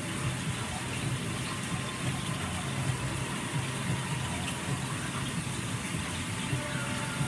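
Flank steak searing in hot oil in a pan: a steady sizzle over a low hum.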